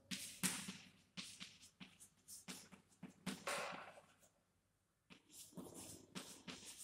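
Chalk writing on a blackboard: a quick, uneven run of short, faint scratches and taps as each word is written, with a pause of about a second near the middle.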